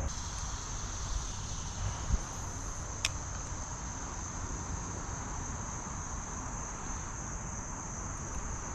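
Steady high-pitched drone of insects, with a single sharp click about three seconds in.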